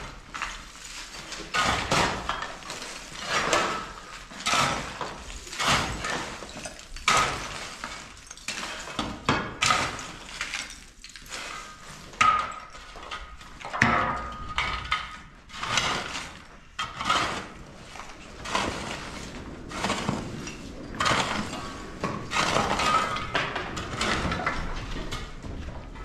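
Repeated gritty scraping and crunching strokes, about one a second, from hand construction work.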